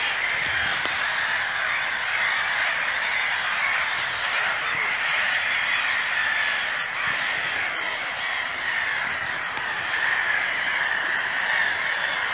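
Steady, dense chorus of wild animal calls, many voices overlapping with no single call standing out.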